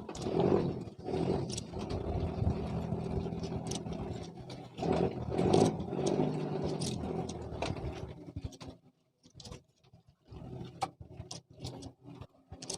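An engine running steadily, with a few louder swells, that cuts off about eight and a half seconds in; scattered faint clicks and knocks follow.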